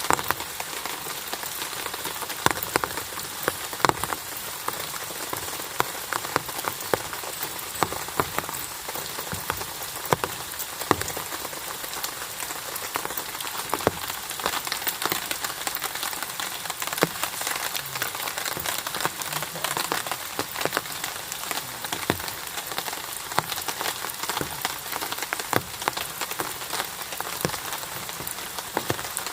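Steady rain falling, with many sharp individual drops striking a nearby surface.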